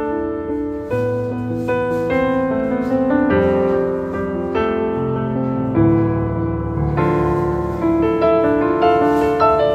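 Background piano music, with held notes and chords changing about once a second.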